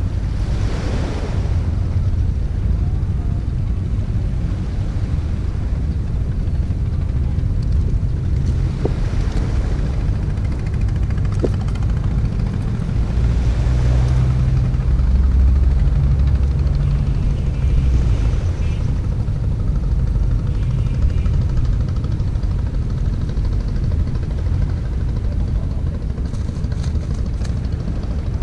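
Wind buffeting the microphone in a steady low rumble, with a low engine drone swelling about halfway through and fading again.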